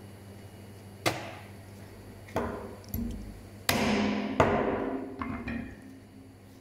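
About six sharp knocks and clatters of metal butchery tools, spread over a few seconds. The ones about three and a half and four and a half seconds in are the loudest and ring on briefly.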